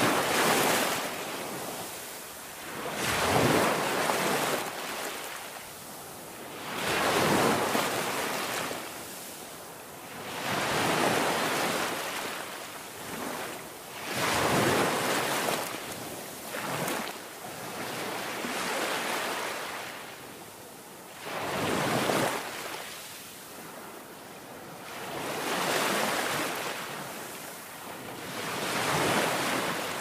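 Sea waves breaking against and washing over rocks, the surf surging and falling back about every three to four seconds.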